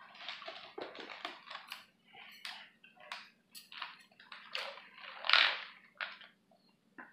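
Close-up chewing of seafood pasta: irregular wet mouth sounds. About five seconds in comes a longer sip through a straw, the loudest sound.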